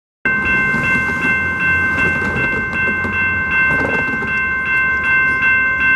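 Railroad grade-crossing bell ringing in quick, even strokes, about two and a half a second, over the low rumble of a train.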